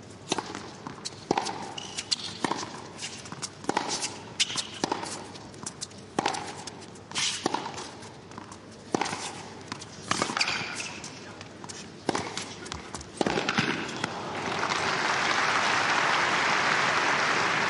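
Tennis rally: a ball struck back and forth with rackets, about one sharp hit every second, roughly a dozen shots. The rally ends about 13 seconds in and the crowd breaks into steady applause for the point.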